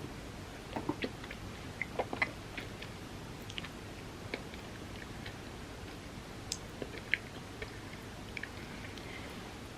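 Close-miked chewing of soft-baked chocolate chip cookie and chocolate wafer, with scattered small wet mouth clicks over a faint steady hiss.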